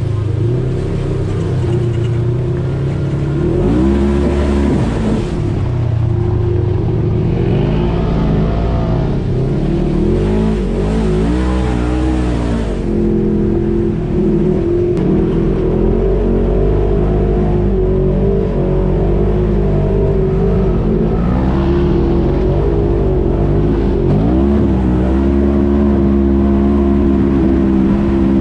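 Polaris RZR side-by-side's engine running hard along the trail. Its pitch rises and falls several times as the throttle is worked, with steadier stretches in between, and it settles into a steady higher note near the end.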